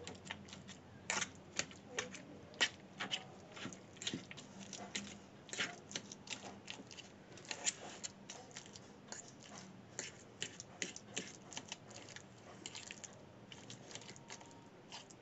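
A fork mashing boiled potatoes, tomatoes and eggplant in a stainless steel bowl: irregular light clicks and scrapes of the metal fork against the bowl.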